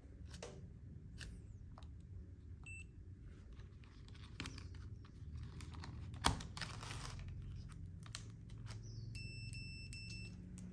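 Pocket digital multimeter being handled: scattered clicks from its rotary selector dial and test leads, with one sharper click a little past halfway. The meter gives a short electronic beep about a quarter of the way in and a run of short beeps near the end.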